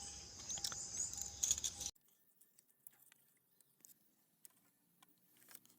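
Faint small clicks and rattles of engine parts being handled, over a background hiss with a faint steady tone. The sound cuts off abruptly about two seconds in, leaving near silence with a few faint ticks.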